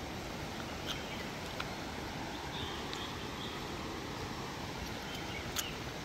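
Steady, even rush of a forest stream, with faint bird chirps now and then and a few short clicks, the sharpest about five and a half seconds in.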